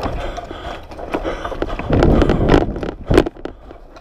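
Footsteps crunching and scuffing through snow, with clothing and gear rustling close to the head-mounted microphone, loudest about two seconds in, and one sharp knock a little after three seconds.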